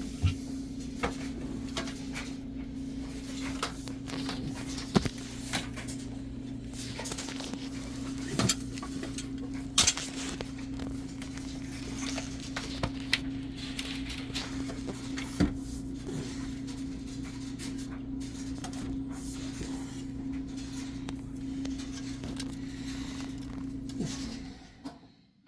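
A steady hum, like a motor running, with scattered knocks and clatter over it. The hum stops shortly before the end.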